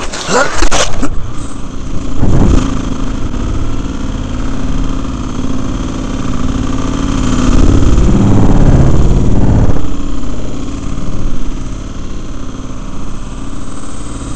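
KTM 450 EXC's single-cylinder four-stroke engine running as the bike is ridden, its revs rising and falling and loudest about halfway through. A few sharp clattering knocks come in the first second.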